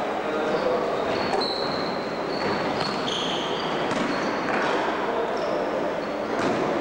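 Basketball game play in a gym: sneakers squeaking in short high chirps on the court floor, with the ball bouncing, echoing in the large hall.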